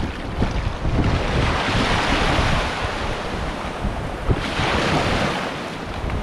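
Wind buffeting the microphone over the rush of water, with two swells of hiss, the louder one in the first half and a shorter one near the end.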